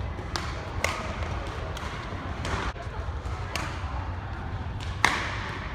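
Badminton rackets striking a shuttlecock, heard as a string of sharp smacks, the loudest about five seconds in, with the thud of players' footwork on the court. Under them runs a steady low hum and faint voices of the large hall.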